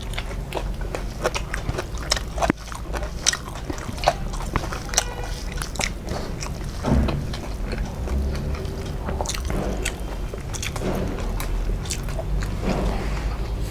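A person eating close to the microphone: biting and chewing food, with many sharp crunching clicks and mouth smacks at irregular intervals.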